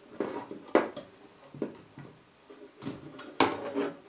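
Thin sheet-steel chassis bracket of a cassette deck being worked loose by hand, clinking and rattling against the deck's metal parts, with several sharp clicks.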